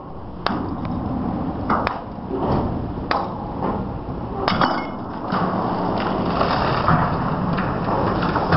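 Several sharp metal clanks and knocks from the chain release gear on a steel barge deck over the first four or five seconds. Then a dense, continuous rush and crash of water as a large steel reef sphere slides off the barge and plunges into the sea.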